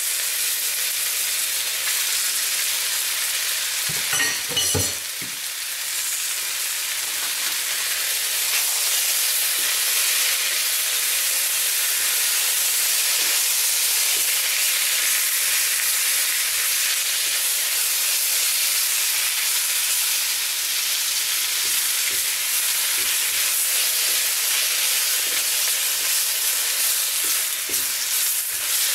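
Pork and blanched Napa cabbage sizzling and being stir-fried in a hot cast iron wok, a steady loud hiss. A brief clatter about four seconds in, with a few faint knocks later.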